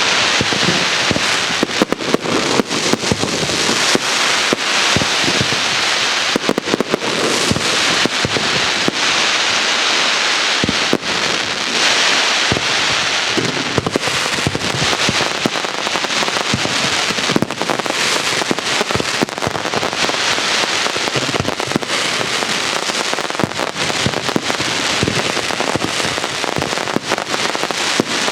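Castillo aerial fireworks display: a continuous dense barrage of overlapping bangs and crackling with no let-up.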